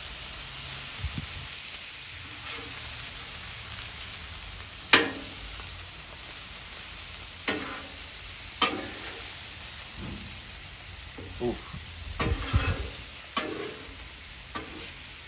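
Italian sausages and onions sizzling steadily on a Blackstone flat-top griddle, with about seven sharp metal clacks of a cooking utensil against the griddle, the loudest about five seconds in and a cluster near the end.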